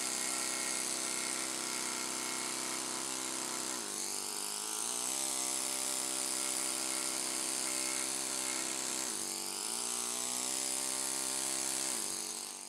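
Pneumatic carving hammer driving a steel chisel into limestone: a steady, high-pitched buzz of rapid blows with air hiss, its pitch sagging briefly twice as the chisel bites. It stops shortly before the end.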